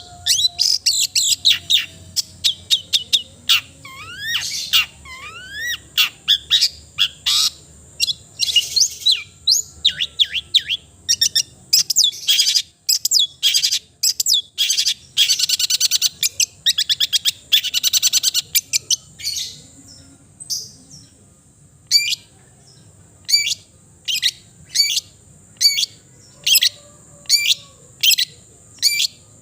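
Long-tailed shrike (cendet) singing a fast, varied song of chattering notes and rising whistled sweeps. About two thirds of the way through it changes to short, sharp single calls repeated roughly once a second.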